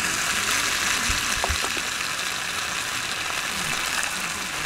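Marinated chicken galbi sizzling steadily on a hot grill pan, with a couple of short clicks of metal tongs against the pan about a second in.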